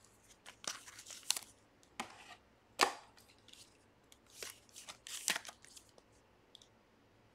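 A trading card and a clear plastic card holder being handled: scattered light clicks, taps and short rustles of card and plastic, the sharpest click nearly 3 s in.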